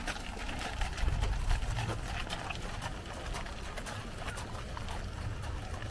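Horse-drawn carriage passing on gravel: scattered clopping of horses' hooves and the crunch of the wheels, over a low rumble.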